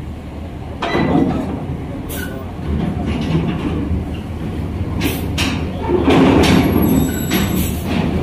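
Mercedes-Benz OH 1626 coach's diesel engine running as the bus creeps up a steel ferry loading ramp. Its wheels roll over the ramp plates with several loud knocks and clanks.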